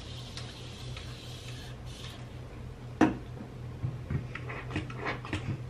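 Small handling knocks: one sharp knock about three seconds in, followed by a run of light clicks and taps, over a steady low hum.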